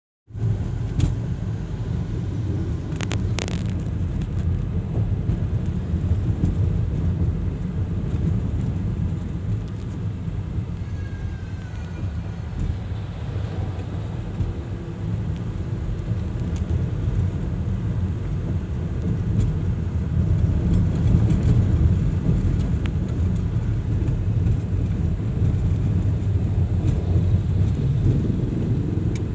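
Steady low engine and road rumble inside a moving car's cabin, with a couple of sharp clicks about three seconds in.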